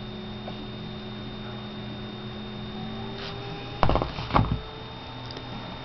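Steady electrical mains hum with faint steady tones. About four seconds in, two short, louder noisy sounds follow each other.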